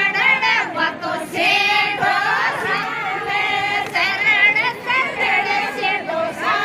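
Women's voices singing a Rajasthani folk song together, high-pitched and unaccompanied, in phrases with short breaks between them.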